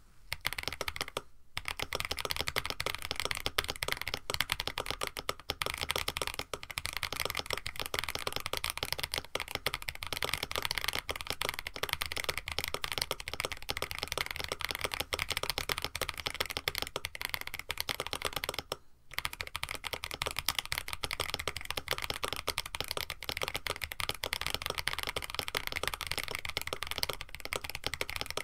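Steady, fast typing on a KBD67 Lite mechanical keyboard with an FR4 plate: a dense run of keystroke clacks, broken by two short pauses, about a second and a half in and at about nineteen seconds.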